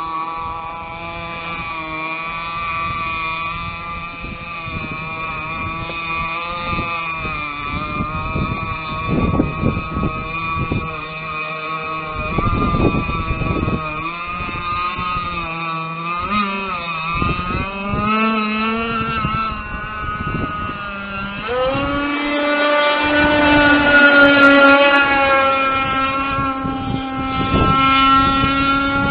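A 29.5cc Zenoah two-stroke gas engine with a Walbro WYK33 pumper carburetor, in an RC racing boat, running with a buzzing, wavering pitch. About three-quarters of the way in it revs up sharply and holds a higher, steady pitch.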